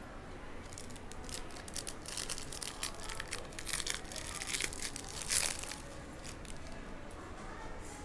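Plastic wrapper of a trading-card pack being torn open and crinkled, a run of sharp crackles for a few seconds with the loudest rip about five seconds in.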